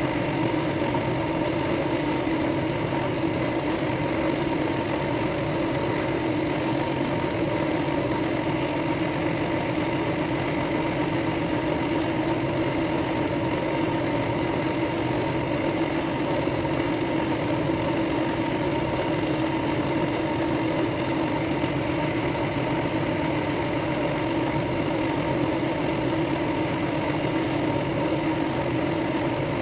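Bench drill press motor running steadily with a bit spinning in its chuck, opening out the hole of a wood-and-brass ring blank held against it. It is an even machine hum with a few fixed tones.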